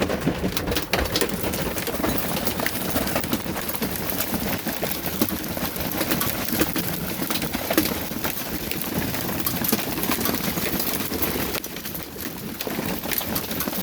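Hailstorm: hailstones pelting down in a dense, irregular patter of sharp knocks over a steady rain-like hiss, the stones sounding big, like rocks.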